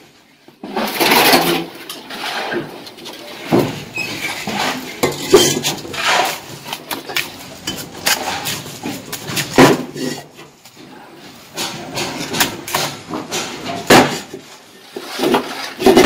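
Steel bricklaying trowel scraping mortar and knocking against hollow clay bricks as they are laid: irregular metallic scrapes and clinks, with several louder taps.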